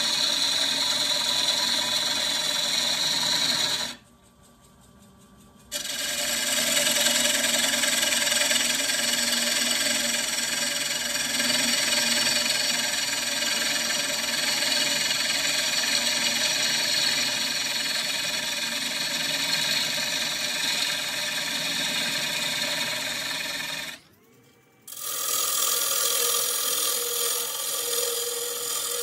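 Gouge cutting a spinning walnut-and-cherry square bowl blank on a wood lathe: a steady, rough shearing hiss of wood being cut, which cuts out abruptly twice, once for about two seconds early on and once for about a second near the end.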